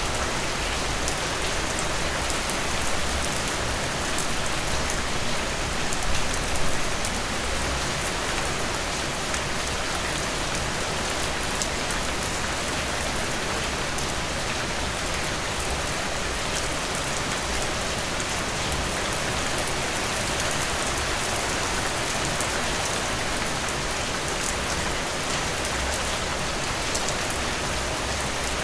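Steady heavy rain falling on surfaces, with individual drop taps standing out of the constant hiss. It swells slightly about six seconds in.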